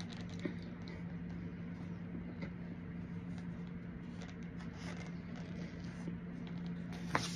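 Faint crunching and crumbling as crumbly white powdery chunks are bitten and handled from a paper cup, a few soft clicks spread out, with one sharper sound near the end. A steady low hum runs underneath.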